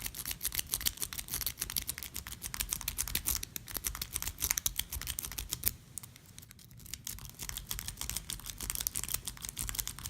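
Rapid, irregular metallic clicking of a half-snowman rake being zipped in and out across the pin tumblers of a vintage Best padlock, with a short lull a little past halfway; the lock does not open.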